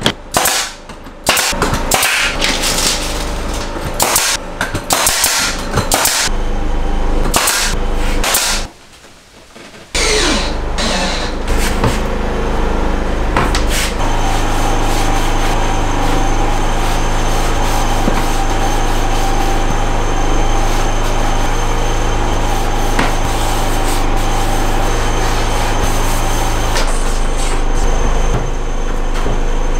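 Pneumatic brad nailer firing in quick sharp shots, mixed with knocks of work on wood, for the first several seconds. About fourteen seconds in, a steady motor drone with a constant hum starts, runs for about thirteen seconds, then stops near the end.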